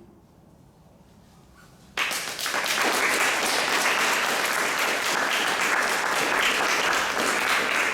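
Audience applause breaking out suddenly about two seconds in, after a short hush, and then going on steadily.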